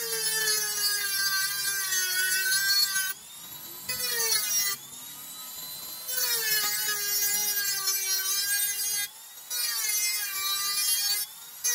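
Handheld rotary tool with a small cut-off disc cutting through aluminum strip: a high-pitched whine whose pitch sags as the disc bites and rises again, with several short breaks when the cut eases off.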